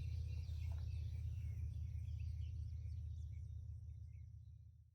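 Steady low rumble with scattered small bird chirps, all fading out just before the end.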